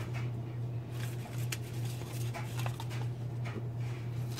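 Faint rustles and light taps as pieces of food are dropped by hand into a blender cup, over a steady low hum.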